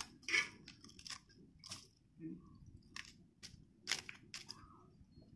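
Metal spatula scraping and breaking the dry, charred leaf wrapping of a baked pitha in a terracotta bowl: a string of separate crisp crunches and clicks, several a second apart.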